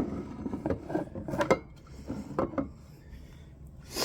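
Fire alarm units being pushed and shifted across a surface by hand: scattered knocks, taps and scraping, with a brief louder rush of noise at the very end.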